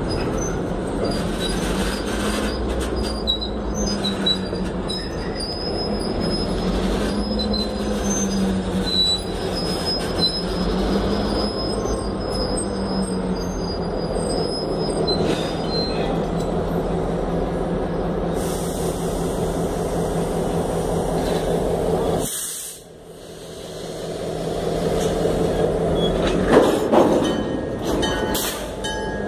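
Freight cars rolling slowly past close by, steel wheels grinding on the rails with thin, high-pitched flange squeals through the first half. The noise dips sharply about two-thirds through, then a few sharp metallic clanks come near the end.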